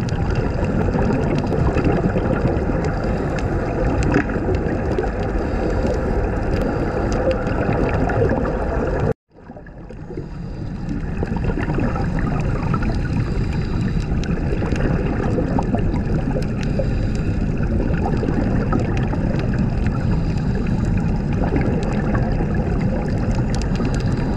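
Steady underwater bubbling and gurgling water noise, recorded with the microphone under the sea. The sound cuts out completely for a moment about nine seconds in, then resumes.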